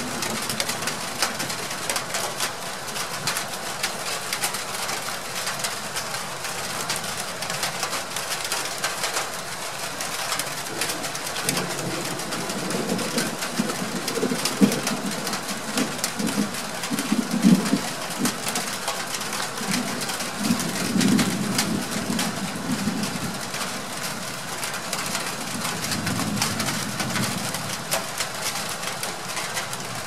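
Distant thunder rolling in low, irregular rumbles from about twelve seconds in until near the end, over a steady hiss.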